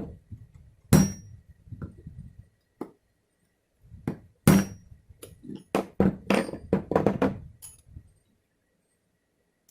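A part being tapped down onto a spline tool's wooden handle: a series of sharp knocks, a few at first and then a quick run of taps about two-thirds of the way through. The loudest knocks carry a brief high ring.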